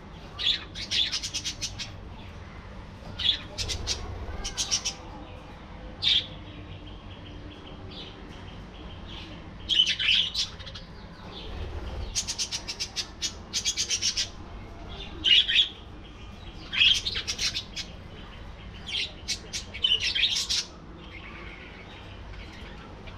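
Budgerigars chirping and chattering in bursts of quick, high chirps with short pauses between.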